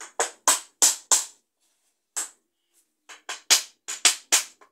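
Small hammer tapping the plastic corner connectors of a DIY cube cabinet's panels to seat them firmly so they don't come out. Sharp taps: four quick ones, a lone tap after a pause, then a run of about six.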